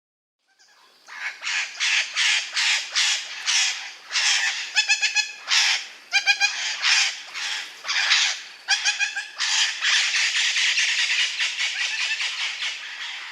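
A parrot squawking over and over: harsh, loud screeches about two a second, merging into an almost unbroken screeching run in the last few seconds.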